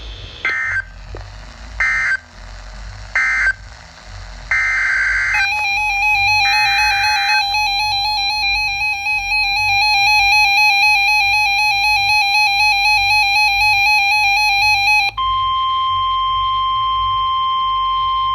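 NOAA Weather Radio EAS sequence: three short squawking end-of-message data bursts, then longer SAME header bursts for the next alert, joined about five seconds in by a fast warbling electronic alarm. About fifteen seconds in this gives way to the steady 1050 Hz weather radio warning alarm tone.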